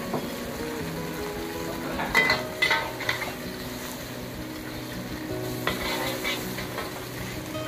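Beaten egg sizzling as it fries in a hot wok over a gas burner, with a metal wok ladle clanking and scraping against the wok a few times about two to three seconds in and again near six seconds.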